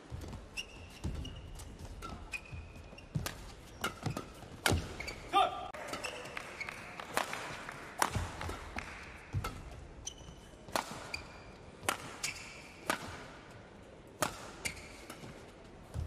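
Badminton rally: sharp smacks of rackets striking a shuttlecock back and forth at irregular intervals, with short squeaks of shoes on the court floor and footfalls between the hits.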